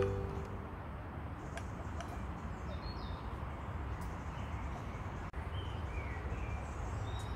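Outdoor ambience: a steady low rumble with faint, scattered bird chirps and a few soft clicks.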